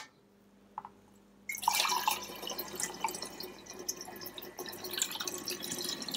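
Ginger beer base (strained ginger tea with lemon juice and ginger bug) being poured from a glass bowl through a plastic sieve and funnel into a large glass jar, splashing and trickling steadily. The pouring starts about a second and a half in.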